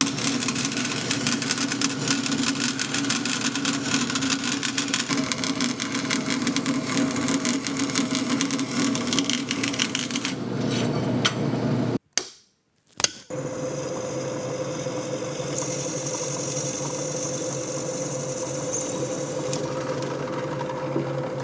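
Bandsaw running and cutting through metal stock, with a fast rasping chatter of the blade. After a short break about twelve seconds in, a machine runs again more smoothly with a steady hum, and a high whine comes in for a few seconds.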